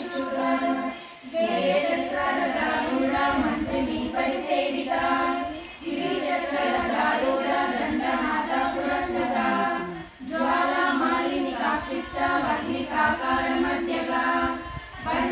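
Group of women chanting a Sanskrit hymn to the goddess Lalita in unison, in a sing-song recitation. The phrases run on with short breaks for breath about every four to five seconds.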